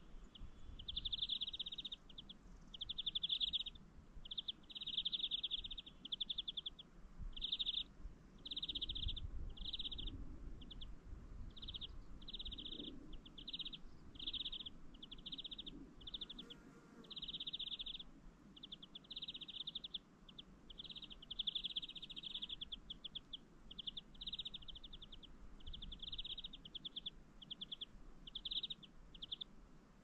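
A small bird singing: short buzzy trills repeated one after another with brief gaps, over a faint low rumble.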